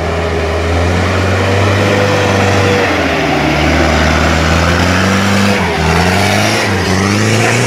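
Mitsubishi Fuso light truck's diesel engine running hard under load as its rear wheels spin in deep mud, the engine note wavering up and down in the second half. The truck is stuck and not getting traction.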